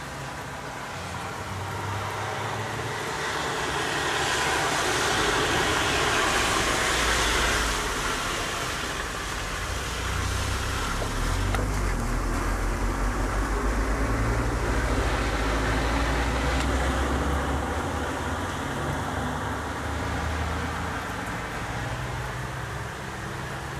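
Heavy rain falling steadily. A hiss swells and fades a few seconds in, and a deep rumble runs for several seconds through the middle.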